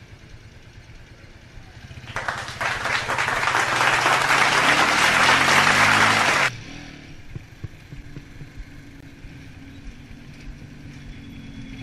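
Bera BR200 motorcycle engine running, its pitch rising as it accelerates under loud wind rush on the microphone from about two seconds in. The wind cuts off suddenly a little past the middle, leaving the engine running low and steady in slow traffic.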